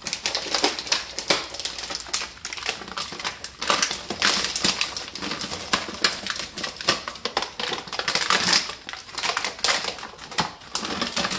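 A thin plastic pasta package crinkling and rustling in the hands as fresh cheese tortellini are shaken out of it into a pot of boiling water. It is a dense, irregular crackle of small clicks throughout.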